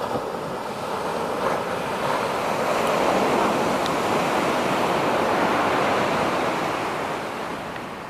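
Sea surf breaking and washing up a sandy beach: a steady rush that grows louder over the first few seconds and eases near the end.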